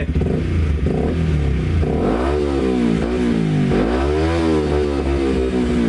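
Yamaha YZF-R125's single-cylinder four-stroke engine being revved through a newly fitted Scorpion aftermarket exhaust: a few short blips, then two longer revs about two seconds in and about four seconds in, each rising and falling back in pitch.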